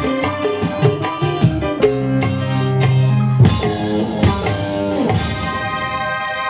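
Live band music with keyboard, guitar and drums: a quick run of drum strokes over held notes, then sustained chords and fuller playing from about halfway through, with no singing.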